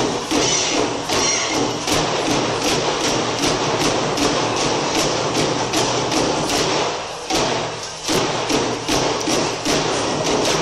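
Japanese taiko drum ensemble: several barrel drums struck together with wooden sticks in a steady rhythm of heavy strokes, briefly softer about seven seconds in.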